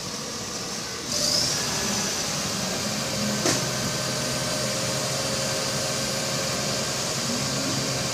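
Magirus fire engine's motor running. About a second in it speeds up to a steady, louder note with a hiss and a brief rising whine. There is a single sharp click midway.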